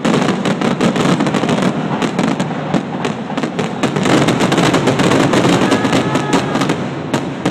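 Fireworks display going off in a dense barrage of bangs and crackles, many a second, thinning out near the end.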